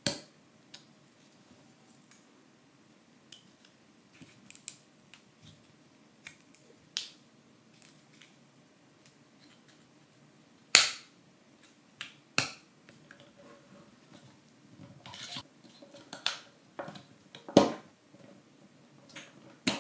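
Laser-cut plywood parts of a wooden mechanical model kit being handled and fitted together: irregular sharp wooden snaps and clicks, a few much louder than the rest, with quieter taps and rustling between them.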